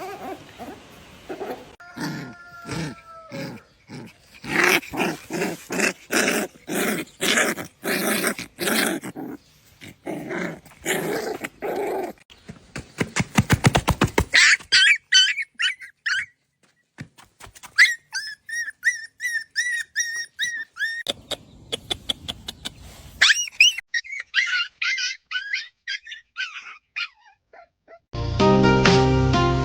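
Small puppy barking over and over in quick short barks, then giving strings of high-pitched yips; music comes in near the end.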